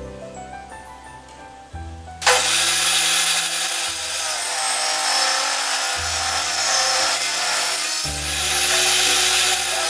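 A power saw cutting wood starts abruptly about two seconds in and runs loudly and steadily to the end.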